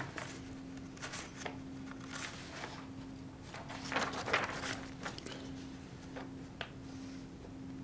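Sheets of printed paper rustling and flipping as they are leafed through, in scattered bursts with the loudest about four seconds in. A faint steady hum runs underneath.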